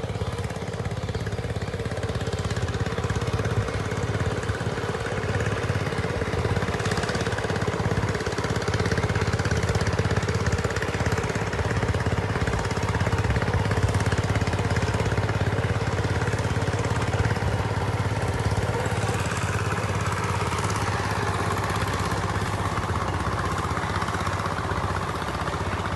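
A small engine running steadily at an even speed, a constant low hum with a rough noisy layer over it.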